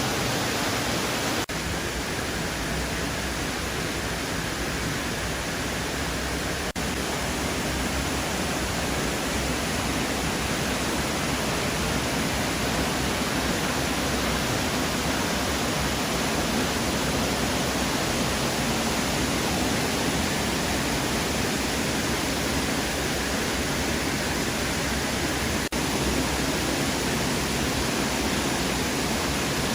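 Waterfall rushing: a steady, dense hiss of falling water that never lets up.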